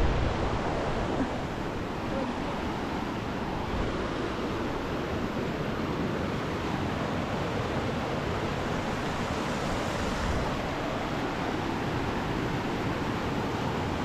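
Turbulent mountain river rushing over rocks, a steady even roar of water.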